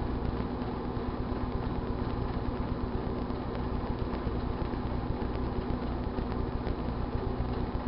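1978 GE Dual Wave microwave oven running with a steady hum, with a few faint scattered ticks from a moist towelette sparking inside it.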